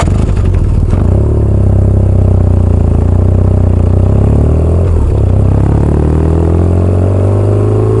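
Motorcycle engine running under way, its pitch dipping about halfway through and then climbing steadily toward the end.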